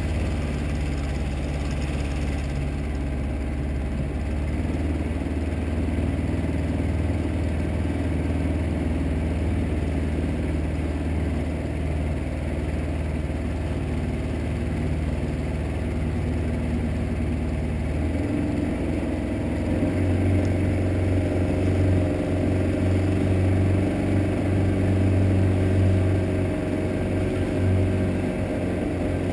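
Suzuki DT-40 two-stroke outboard motor running steadily, pushing a skiff along. Its note rises and gets a little louder about two-thirds of the way through as the throttle opens.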